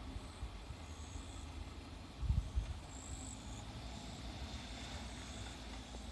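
Low, steady rumble of an EF66-hauled freight train fading into the distance after passing the crossing, with a few low thumps about two seconds in. Faint, short high chirps come and go over it.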